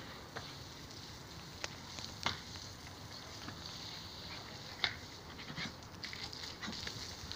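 Siberian husky puppies play-fighting, scuffling about with a few short sharp sounds scattered through.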